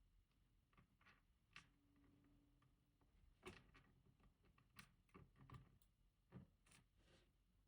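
Faint, scattered clicks and taps of small metal parts being handled: the spacers and discs of a disc detainer padlock being stacked back into its housing.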